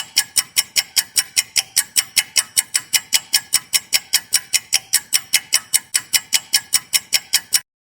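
A ticking sound effect: sharp, evenly spaced clicks at about five a second, stopping suddenly near the end.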